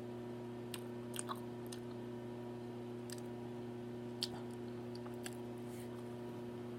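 Quiet close-miked chewing of a mouthful of food, with a scattering of soft wet mouth clicks, over a steady low hum.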